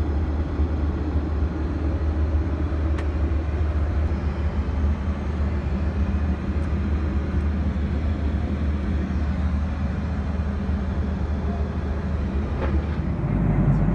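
Steady low drone of a Boeing 737-800 airliner in cruise, heard inside its lavatory, with a couple of faint clicks.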